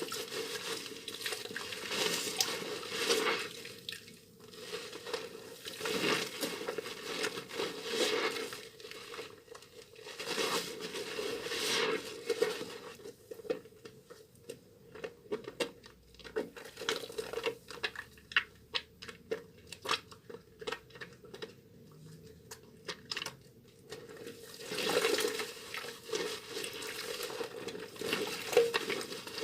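Soaked Duru Gourmet bar soap being lathered and squeezed in wet hands: irregular wet squishing swells, with a quieter stretch in the middle made of many small sticky clicks and crackles.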